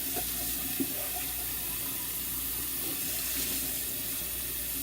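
Kitchen faucet running steadily into a sink while dishes are washed by hand, with a couple of light clinks about a second in.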